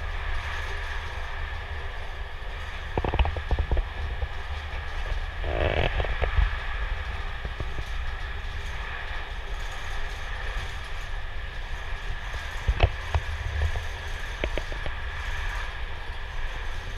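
Inside a moving train carriage: the steady low rumble of the train running on the track, with sharp clacks and creaks from the carriage now and then, loudest about three, six and thirteen seconds in.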